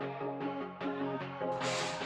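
Background music with a steady beat and an electronic sound.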